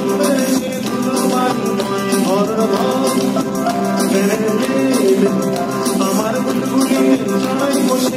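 Male vocalist singing a Bengali folk-rock song live with band accompaniment of hand drums, keyboard and guitar, amplified through the hall's sound system.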